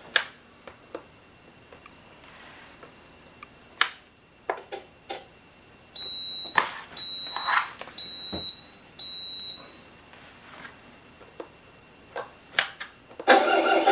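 Four electronic beeps at one high pitch, about one a second, with scattered clicks from an RC transmitter's switches and sticks being worked.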